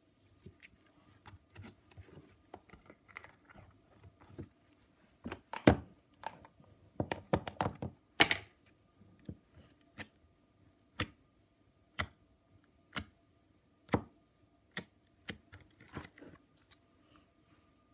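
Sharp clicks, taps and knocks of hands handling small objects on a tabletop, the loudest a third to half-way through, then single clicks about once a second.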